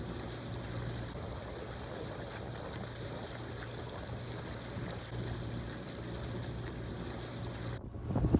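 A boat under way, with a steady low engine hum and the hiss of water. Near the end it cuts suddenly to louder wind buffeting the microphone.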